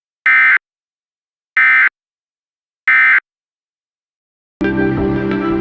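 Emergency Alert System end-of-message code: three short, identical bursts of SAME digital data, about a second and a third apart, marking the end of the alert message. About a second before the end, background music starts.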